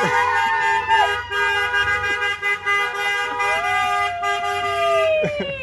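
Several car horns honking together in long, steady blasts from a passing drive-by parade, with voices calling out over them; near the end the horns drop in pitch and stop.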